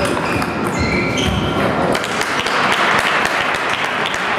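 Table tennis balls clicking off bats and tables in a large hall, with a few short squeaks of shoes on the floor. From about halfway a rush of hall and crowd noise rises under the clicks.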